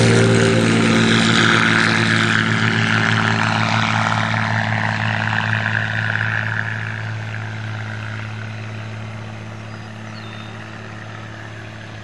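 Wheeler Express homebuilt plane's propeller engine giving a steady drone at an even pitch, fading steadily as the plane flies away.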